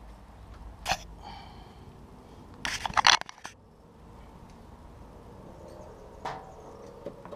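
Metal hand tools and wheel parts clinking and clattering during removal of a motorcycle's front wheel: one clink with a short ring about a second in, a louder quick clatter of several clacks near three seconds, and a couple of lighter knocks near the end.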